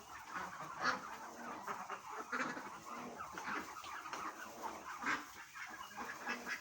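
A flock of young, well-fed ducks resting and making many short, overlapping soft calls, a sound the owner likens to human snoring.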